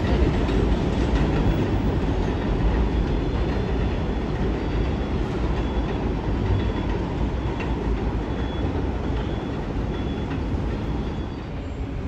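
R142 subway train running through the station, a steady wheel-and-track rumble with some clickety-clack that slowly fades.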